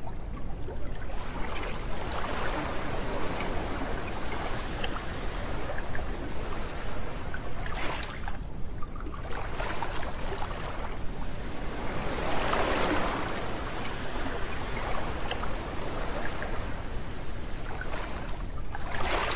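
Small waves breaking and washing up a sandy beach, the surf swelling and fading in an irregular rhythm, loudest about halfway through.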